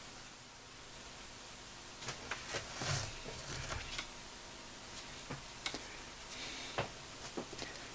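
Watercolour brush dabbing and touching the paper. After a faint hiss, from about two seconds in there is a scattered run of small ticks and a couple of brief soft scrubbing sounds.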